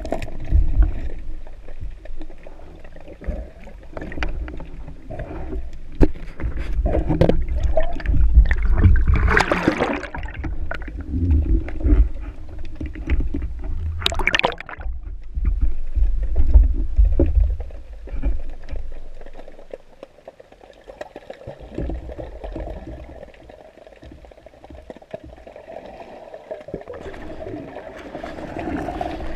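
Water moving and gurgling around a camera in the sea, with a heavy low rumble and scattered knocks. Two loud hissing surges come about ten and fourteen seconds in, and the rumble drops away past the middle.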